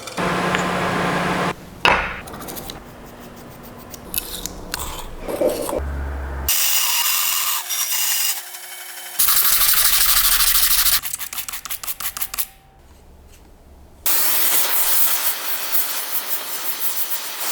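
Workshop tool sounds in a quick run of edited cuts, changing every second or few seconds: stretches of power-tool grinding or sanding and stretches of rapid back-and-forth rubbing or sawing strokes.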